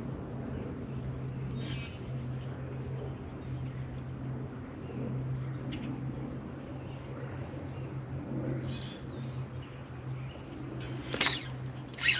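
Low steady hum of an electric trolling motor holding the boat over a spawning bed, with a few faint bird chirps. About 11 seconds in comes a sudden loud rush of noise.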